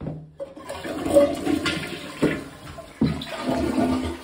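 Toilet being flushed with its tank lid off: about half a second in, water starts rushing from the tank through the bowl and down the drain. It is the first test flush of a freshly reset toilet, to check the new wax ring seal for leaks.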